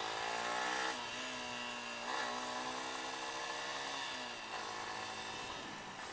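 Yamaha Y15ZR motorcycle's single-cylinder engine on the move. Its pitch rises until about a second in, then drops back and holds steady, and it eases off after about four seconds. Wind rushes over the helmet microphone throughout.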